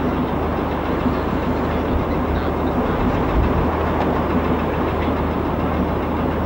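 A vehicle engine running with a steady low rumble under a constant noisy haze.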